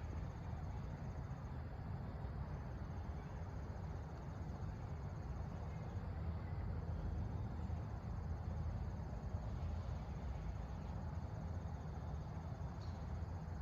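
Steady low background hum with a faint, high, pulsing insect trill above it.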